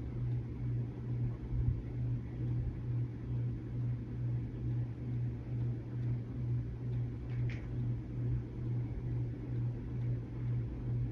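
A steady low mechanical hum that pulses evenly, like a small motor or fan running.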